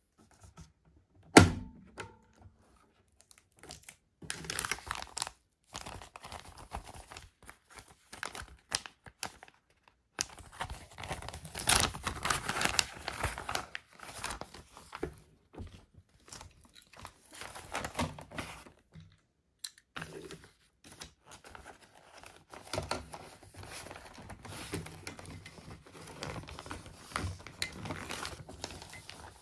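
Plastic being crinkled and torn by hand, in irregular bursts, with one sharp knock about a second and a half in.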